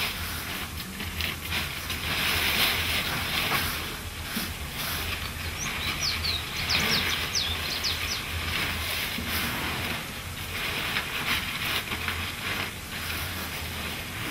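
Bundles of dried tobacco leaves rustling and crackling as they are handled and swung, in swells a second or two long. A quick run of high bird chirps about six seconds in.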